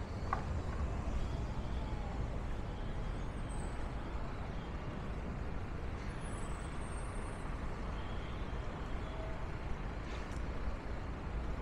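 City street traffic: a steady low rumble of road vehicles, with a brief faint high squeal about six seconds in.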